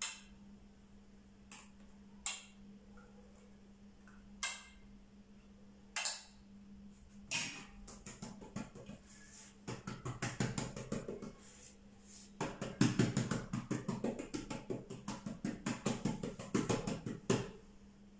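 Hands patting and slapping ghee-coated feteer dough spread thin on a large round board. A few separate taps come first, then long runs of rapid pats, about eight to ten a second, as the fat is worked over the dough sheet.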